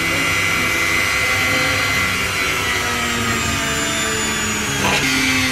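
Mollar MG005E mini grinder running at high speed through its flexible shaft, with a small drill bit boring into PVC pipe. The whine falls slightly in pitch as the bit works, with a brief crackle about five seconds in.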